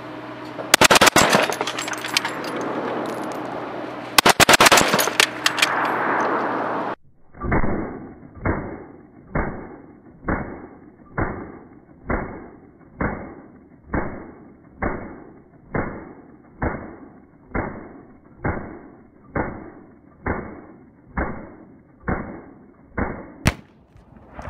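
Two short bursts of machine-gun fire from a belt-fed, water-cooled Vickers gun in the first few seconds. Then a long, evenly spaced series of dull, muffled shots, about one a second with nothing bright on top: gunfire played back slowed down.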